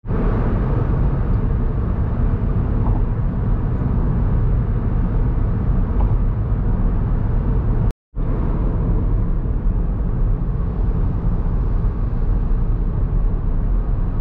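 Steady low rumble of road and engine noise from a car being driven. It cuts out completely for a moment about eight seconds in.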